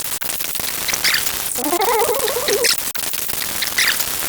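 Loud static hiss with short crackling bursts, and a wavering, warbling pitched sound for about a second near the middle.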